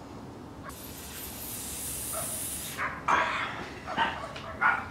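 A hiss lasting about two seconds, then four or five short, high yelps or whimpers close together, louder than the hiss.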